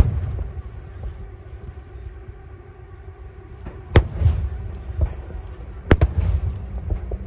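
Aerial firework shells bursting: sharp bangs at the start, another about four seconds in and a few close together around six seconds in, with a low rolling rumble between them.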